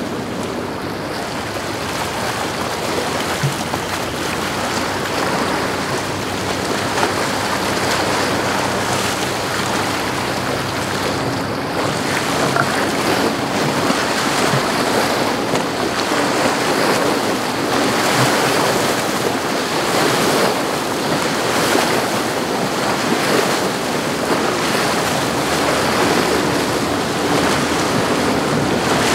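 Waves and churning surf with wind buffeting the microphone. Under it is the low hum of outboard engines as a Sailfish 2660CC center-console boat runs in at speed, and the sound grows a little louder toward the end as the boat nears.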